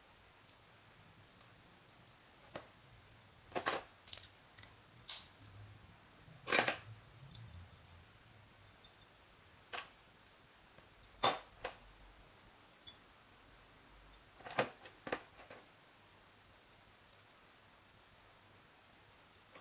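Scattered short clicks and taps from small model-truck parts being handled and pried apart by hand, about a dozen of them at uneven intervals.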